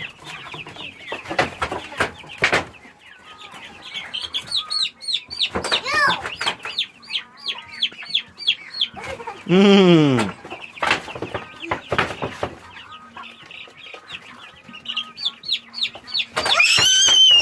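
Young chickens peeping and clucking over and over in short, high, falling calls, with scattered knocks. A low, falling "mmm" from a person about ten seconds in, and a loud, high squeal starts near the end.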